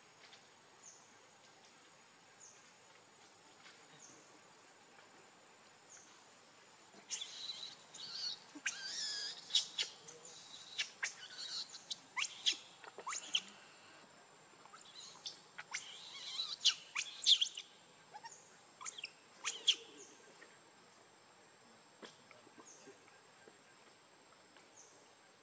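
A young macaque screaming in a long run of shrill, high-pitched cries with short breaks. The cries start about seven seconds in and stop about seven seconds before the end.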